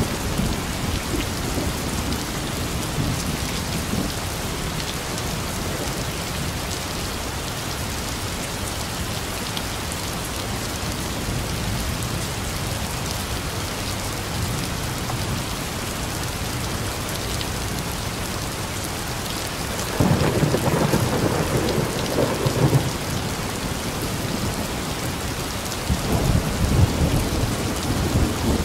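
Heavy rain falling steadily. Thunder rumbles twice: the first roll starts suddenly about two-thirds of the way in, and a second comes near the end.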